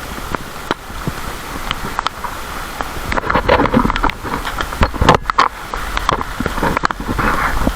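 Heavy rain falling, with many irregular sharp taps of drops striking a nearby surface; it grows heavier and louder for a few seconds in the middle.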